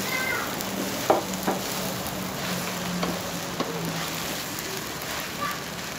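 Food sizzling in a hot wok with a steady hiss, while a metal spatula scrapes and knocks against the pan several times as it is stirred.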